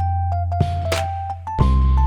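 Instrumental background music: a simple keyboard-like melody stepping over a deep bass note, with drum hits about twice a second. The bass shifts to a new note near the end.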